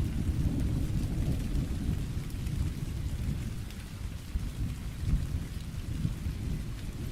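Thunderstorm: a low rolling thunder rumble over steady rain. The rumble eases off in the middle and builds again near the end.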